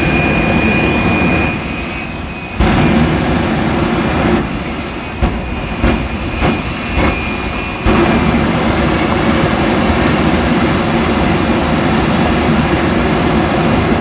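Jet engine of a jet-powered show truck running hard: a loud, steady rush with a faint high whine. The power drops back briefly a few times and then surges up suddenly again, about 2.5, 5, 6.5, 7 and 8 seconds in.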